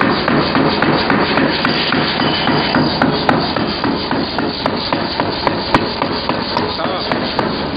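Pneumatic forging hammer's ram striking a block of wood in rapid, even blows, about three a second, over the steady hum of the machine running.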